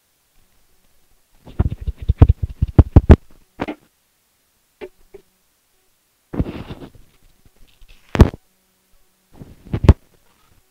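A quick run of sharp knocks on an aluminium cooking pot, then a few single knocks and short scrapes, as blended pepper, tomato and onion is emptied into the pot of steamed meat.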